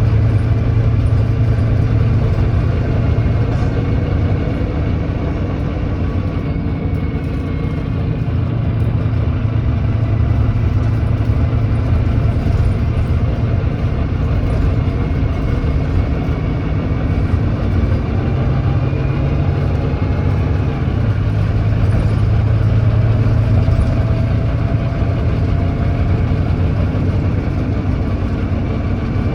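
Volvo D9B 9.3-litre diesel of a Volvo B9TL double-decker bus running under way, on a bus with an exhaust leak. The engine note drops back about six seconds in, then rises again in pitch and loudness from about eighteen to twenty-four seconds.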